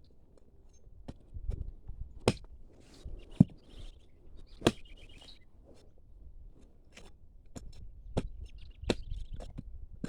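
A hand blade chopping and cutting into a tree root, with about nine sharp, irregularly spaced strikes and some scraping between them.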